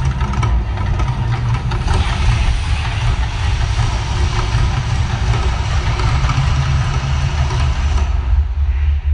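Man-made volcano show: a loud, steady deep rumble, with a rushing hiss joining it from about two seconds in and fading near the end.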